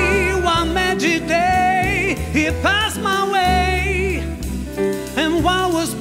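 Big band jazz recording: a male vocalist sings phrases with vibrato over plucked double bass and piano.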